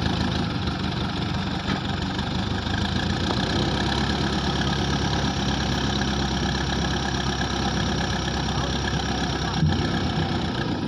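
Terex 740S backhoe loader's diesel engine running steadily, with a short thump near the end.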